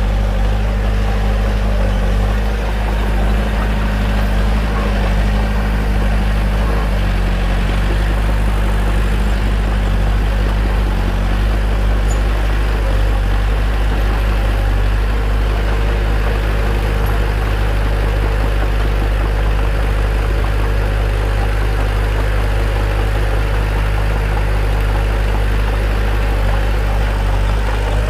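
Bulldozer's diesel engine running steadily, a deep, even drone that holds its pitch with only a slight wobble.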